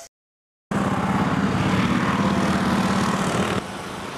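A steady engine-like running noise with a strong low hum begins just under a second in, after a brief cut to silence. It drops suddenly to a lower level about three and a half seconds in.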